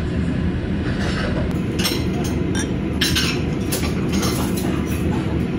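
Lager poured from a Kirin beer bottle into a stemmed glass: a run of short splashing, fizzing pulses with a few glassy clinks, over a steady low rumble.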